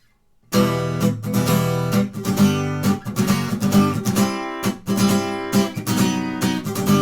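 Acoustic guitar strummed in the gallop pattern (down, up, then an accented down, over and over) on barre chords, starting about half a second in.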